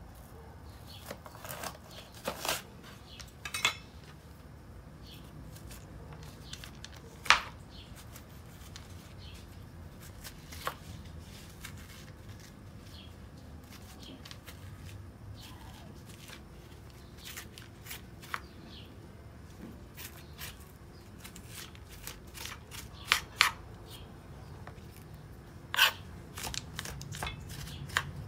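A knife cutting through a bitter melon and knocking on a plastic cutting board, then scrapes and clicks as the seeds and spongy pith are scraped out of the halves. The sharp knocks come one at a time, the loudest about seven seconds in, with a cluster of them near the end.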